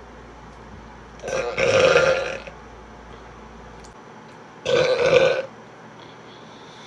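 A woman burping loudly twice: a longer burp about a second in, then a shorter one about five seconds in.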